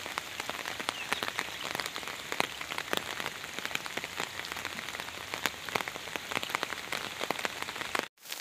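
Steady rain falling on floodwater and plants, with many sharp clicks of drops landing close by. The sound cuts out briefly near the end.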